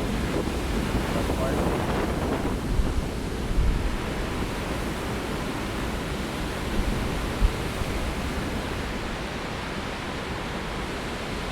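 Heavy winter storm surf: big waves breaking and rushing in as a steady roar, with gusty wind buffeting the microphone in a few brief low thumps.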